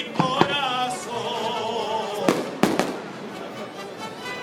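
Fireworks going off in sharp bangs, a pair near the start and a quick cluster about two and a half seconds in, with music playing throughout.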